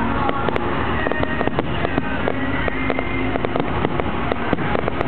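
Fireworks display: a dense, irregular run of sharp cracks and pops from bursting aerial shells and crackling effects, over a continuous low rush of noise.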